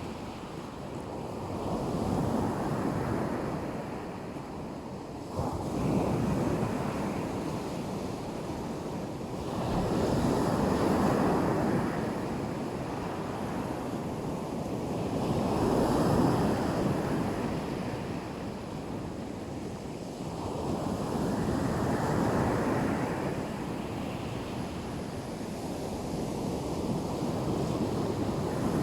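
Black Sea surf: waves breaking and washing up the beach. The rush of water swells and ebbs about every five seconds.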